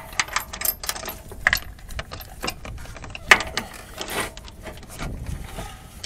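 Irregular metallic clicks and clinks of a ratchet with an extension and spark plug socket being worked as a spark plug is fitted, with a sharp louder click about three seconds in.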